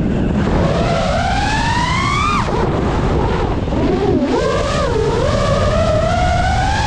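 Brushless motors and propellers of an FPV quadcopter whining. The pitch climbs steadily, drops sharply about two and a half seconds in, wavers, then climbs again as the throttle changes, over a low rumble.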